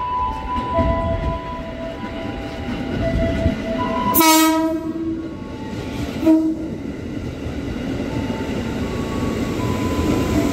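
JR 205 series electric commuter train running into the station past the platform, with steady rolling wheel and motor noise. It sounds its horn: one blast of just under a second about four seconds in, then a short second blast about two seconds later.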